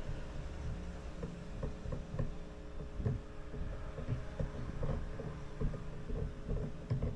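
Irregular light clicks and knocks from a Shimano Stradic SW spinning reel and rod being handled, likely as the reel is fitted to the rod, over a steady low hum.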